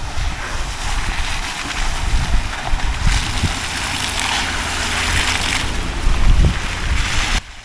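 Nissan Patrol Y62 4WD driving through floodwater and mud, water splashing and hissing, with heavy wind buffeting the microphone. The splashing swells in the middle and cuts off suddenly near the end.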